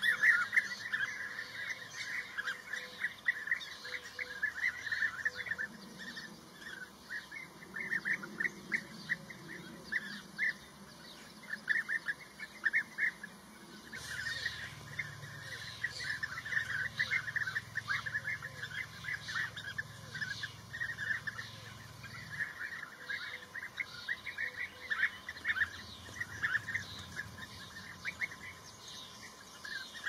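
Many bee-eaters calling together at a nesting colony: short, rolling chirps, densely overlapping and repeated throughout.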